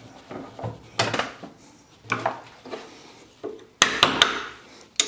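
Hand tools clinking and tapping against the metal universal joint of a Land Rover Defender prop shaft held in a steel bench vice, during a universal joint refit. It is a string of separate sharp metallic clicks and knocks, the strongest about a second in and in a quick cluster near the end.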